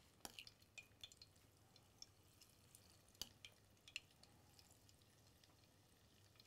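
Near silence with a few faint, sharp clicks of kitchen utensils.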